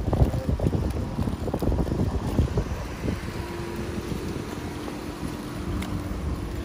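Wind buffeting the phone's microphone, an uneven low rumble.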